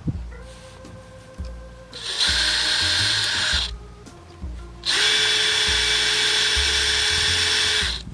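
Electric drill drilling out the pop rivets that hold a rubber storage-compartment hinge. It runs in two steady, high-pitched spells: a shorter one about two seconds in and a longer one of about three seconds near the end.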